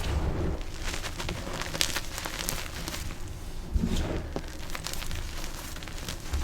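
Dyed gym chalk being crushed, a dense run of crispy, crunchy crackles with dull low thumps near the start and about four seconds in.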